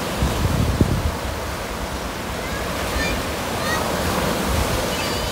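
Ocean surf breaking and washing up a sandy beach, with wind gusting on the microphone, heaviest in the first second.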